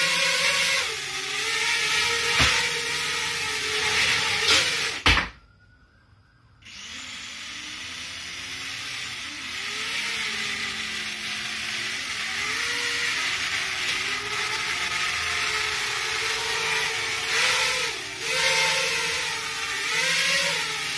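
A small 3D-printed quadcopter's motors and propellers whine while it flies, the pitch wavering as the throttle changes. About five seconds in there is a sharp knock as it comes down, and the motors stop for over a second. They then spin back up with rising and falling pitch, and it lifts off again.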